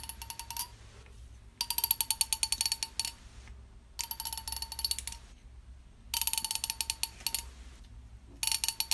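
Teeth of a plastic comb being run over with a finger, giving a rapid ratchet-like ticking run a little over a second long, repeated about every two seconds.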